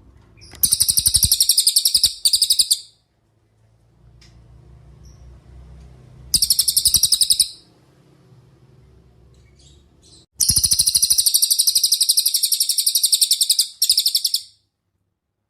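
Velvet-fronted nuthatch (cililin) giving loud, rapid trills of sharp high notes in three bouts: a two-second trill near the start, a short one about six seconds in, and a longer four-second trill from about ten seconds in.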